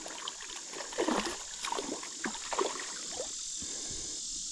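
A small hooked fish splashing at the water's surface as it fights on the line, a quick run of short splashes about every half second for a couple of seconds. A steady high insect drone sounds behind it.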